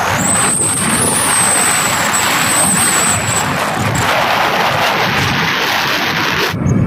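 Wind and road noise from a moving vehicle, a steady loud rush with a thin high whine over the first few seconds, cutting off abruptly near the end.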